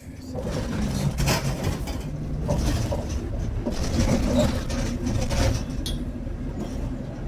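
A motor vehicle running, a steady low engine rumble with surges of road noise.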